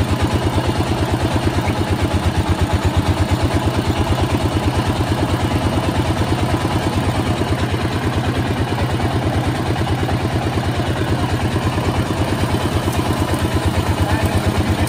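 Small engine powering a street sugarcane juice crusher, running steadily with a fast, even beat.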